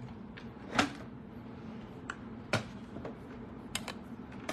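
A handful of sharp clicks and taps from a plastic embossing folder and the plates of a manual cut-and-emboss machine being handled. The loudest come about a second in and just past halfway, over a faint steady hum.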